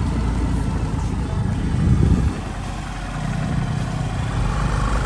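A motor vehicle's engine running steadily close by, with a low rumble, swelling briefly about two seconds in.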